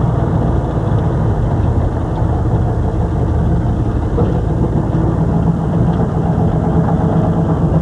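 Motor vehicle engine running steadily with a constant low rumble.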